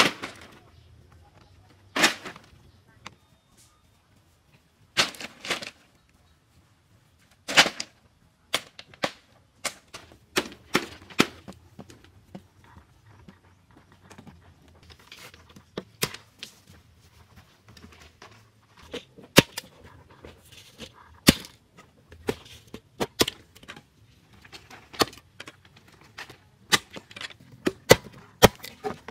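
Bamboo poles knocking and clattering as they are set down on a pile, then a run of sharp wooden knocks and cracks from bamboo being split and chopped with a knife against a log, coming at irregular intervals and thickening toward the end.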